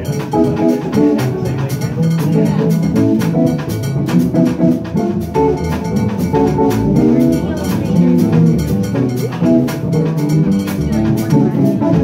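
Live jazz trio playing: guitar, plucked upright double bass and drum kit with cymbals keeping time.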